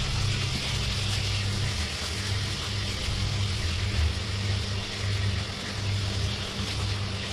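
A steady low machine hum that pulses slowly, like a motor or engine idling.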